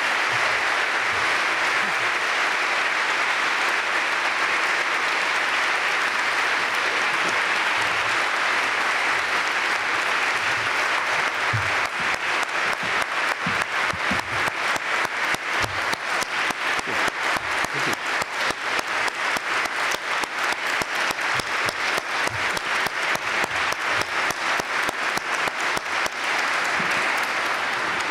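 Large audience applauding at length. About eleven seconds in, the clapping falls into an even, rhythmic beat of roughly three claps a second.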